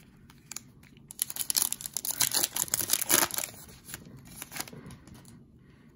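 Foil wrapper of a Panini Prizm football card pack being torn open and crinkled by hand. There is a dense crackling burst for about two seconds, then lighter, sparser crinkles as the cards come out.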